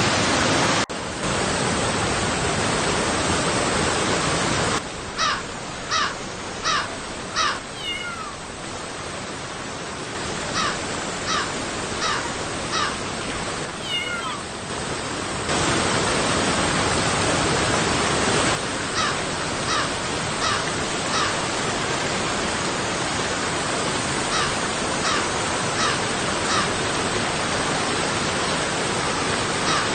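River water rushing steadily over rocks and small falls. Over it, an animal calls in short runs of four or five, roughly two calls a second, several times.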